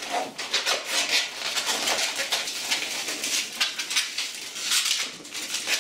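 Latex 260 modelling balloon squeaking and rubbing under the fingers as it is twisted into small bubbles with pinch twists, in an irregular run of high-pitched squeaks.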